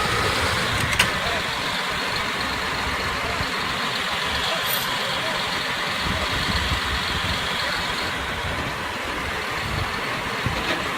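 Diesel engine of heavy earthmoving machinery running steadily, with one sharp knock about a second in.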